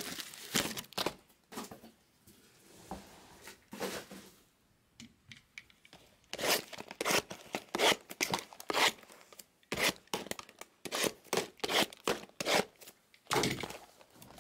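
Cardboard trading-card boxes being handled and stacked: a run of short taps, scrapes and crinkles, sparse at first and then rapid and louder from about six seconds in.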